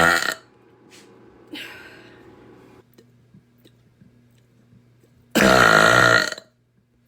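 A woman burping: the tail of one long, loud, deep burp right at the start, then about five seconds in a second loud, deep burp lasting about a second, its pitch wavering.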